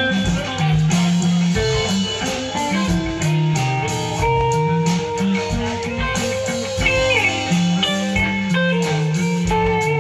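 Live band playing: electric bass guitar, electric guitars and a drum kit, with steady drum hits under moving bass lines and held guitar notes.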